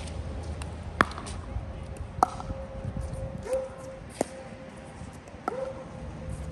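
Pickleball rally: paddles striking the hard plastic ball with sharp pocks, four hits about a second or so apart, the first two loudest.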